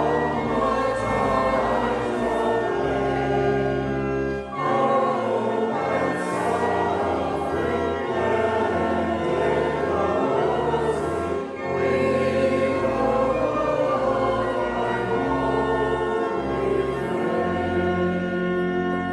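Voices singing a hymn in chorus with organ accompaniment, in long held chords. There are brief breaks between lines about four and a half and eleven and a half seconds in.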